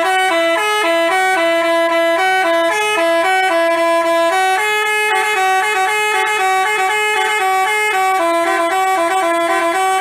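Telolet basuri bus horn playing a quick tune of short stepped notes, loud and clear-toned with no pauses.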